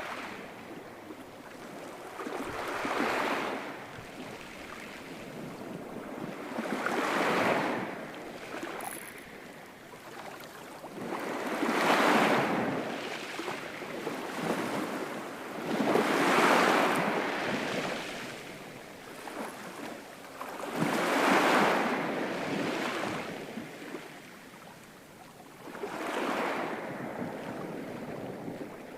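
Ocean waves breaking, one swell of surf about every four to five seconds, six in all, each rising and falling away.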